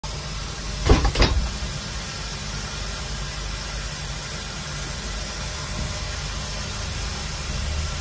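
Air conditioning blowing with a loud, steady hiss inside the cabin of a Scania OmniExpress coach, over the low rumble of the moving bus. Two sharp knocks sound about a second in.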